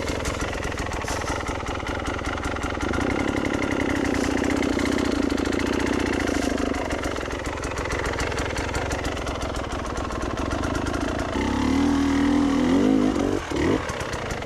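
Enduro dirt bike engine running steadily, with short rev rises in the last few seconds.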